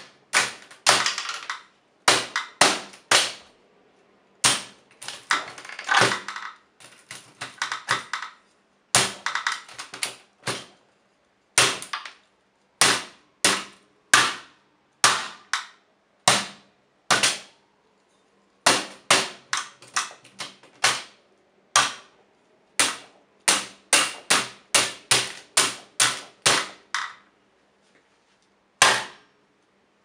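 Hammer striking the keys of an Olivetti Lettera 25 portable typewriter again and again: several dozen sharp cracks in irregular runs, some in quick clusters, with short pauses between. Some blows trail a brief rattle, and the blows are knocking keycaps askew.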